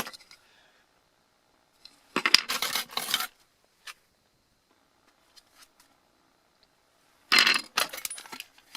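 Small metal parts of a disassembled laptop hard drive clinking and rattling as they are handled, in two short bursts about five seconds apart.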